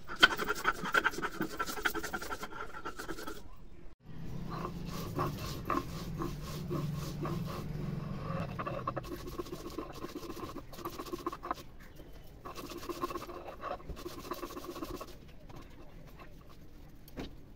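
Stone hand-grinder (nora) rubbed back and forth over a chiselled stone slab (sil), rasping in quick repeated strokes as it grinds cumin seeds into paste. The strokes stop abruptly for a moment about four seconds in.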